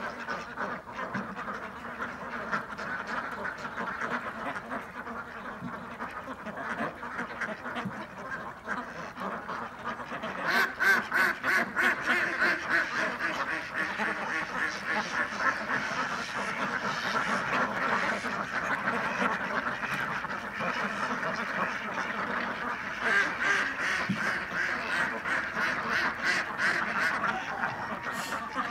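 A large flock of domestic ducks quacking together in a dense, continuous chorus of many overlapping calls, growing louder about ten seconds in and again near the end.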